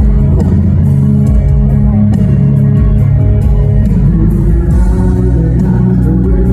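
Live rock band playing loud in concert, heard from the crowd: electric guitar and bass with a male lead singer.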